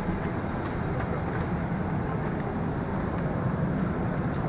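Steady rushing noise inside a parked airliner cabin during boarding, typical of the cabin ventilation air, with a few faint clicks.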